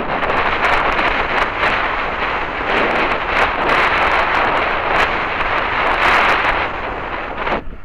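Wind rushing over the microphone and knobby tyres rolling on a dirt fire road as a mountain bike rides fast, with scattered clicks and knocks from the bike chattering over bumps. The noise dips briefly near the end.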